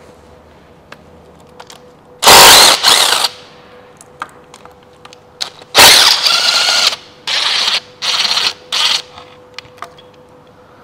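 DeWalt cordless ratchet on a long extension spinning 12 mm nuts and bolts off an engine's thermostat housing. It runs in short bursts: one about two seconds in, then a longer run followed by three quick bursts from about six seconds in.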